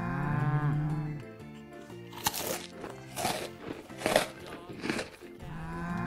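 A cow moos once for about a second. From about two seconds in come several short crunching noises, like munching food. Another moo begins just before the end, over soft background music.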